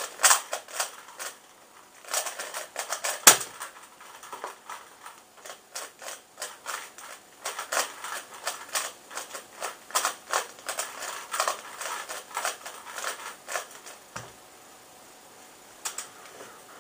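A 3x3 Rubik's cube being turned fast in the hands, its layers clicking and clacking in quick, uneven runs. There is one sharp knock about three seconds in and a softer thump near the end, followed by a few separate clicks.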